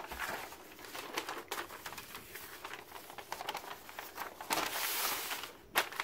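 Folded paper instruction sheet being opened out and smoothed flat by hand, crinkling and rustling irregularly, with a louder rustle about five seconds in and a sharp crackle just before the end.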